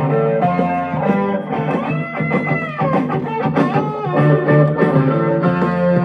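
Instrumental break of a 1971 blues-rock song: electric guitar lead playing over the band, with one sustained note bent up and back down about two seconds in.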